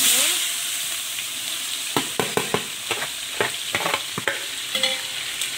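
Sliced onions sizzling in hot oil in a large aluminium pot. The hiss is strongest just as they go in, then settles to a steady sizzle. From about two seconds in, a run of sharp clicks and scrapes comes against the pot as they are stirred with a metal slotted ladle.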